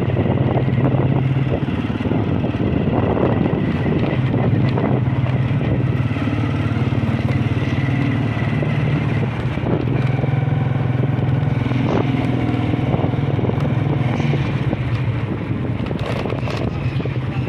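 Motorcycle engine running steadily while riding, heard from the pillion seat, with road rumble underneath.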